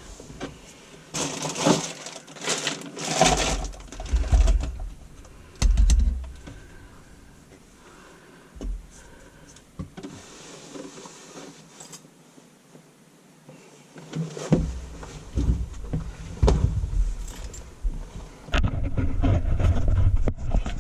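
Clinks, scrapes and knocks of metal and plastic drain parts being handled as a Mission rubber band boot coupling is fitted onto the drain pipe. The sounds are scattered, with a quieter stretch in the middle and low rumbling handling noise near the end.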